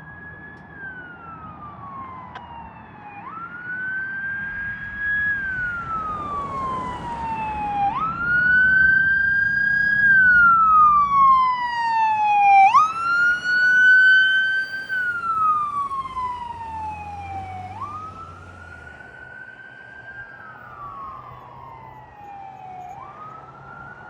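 An emergency vehicle's electronic siren in wail mode. Each cycle jumps up quickly, holds briefly, then slides slowly down, repeating about every five seconds. It grows louder to a peak about halfway through and then fades as the vehicle drives past, with a low engine rumble under the first half.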